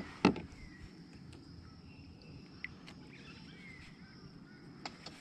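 Outdoor creek ambience: a steady high-pitched insect drone with a few short bird chirps, opening with a single loud thump just after the start and a couple of faint clicks later on.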